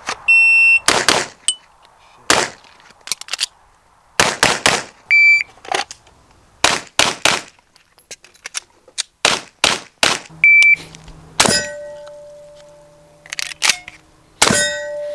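Shot-timer start beeps followed by strings of gunshots fired in quick groups of two to four. Steel targets ring on after the later hits.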